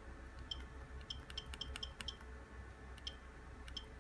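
Keypad buttons of a Netaş mobile phone being pressed in quick succession: about ten faint, short plastic clicks at an uneven pace, over a low steady hum.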